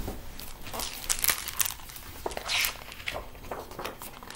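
A hardcover picture book being handled and opened, its cover and pages rustling and crinkling in short, irregular bursts.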